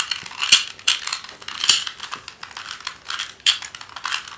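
Plastic 2x2 Rubik's cube being turned by hand through a sequence of face turns, its layers clicking and clacking in a quick, irregular run of sharp clicks.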